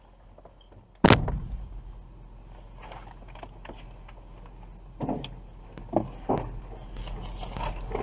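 Full plastic trash bags thrown onto a load of bags in a vehicle. One heavy thud about a second in, then several softer thumps and plastic crinkling, over a low steady vehicle hum.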